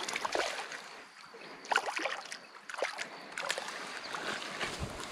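Small hooked fish splashing and thrashing at the pond's surface on a tenkara line, in short irregular splashes and water sloshes, with a low thump near the end.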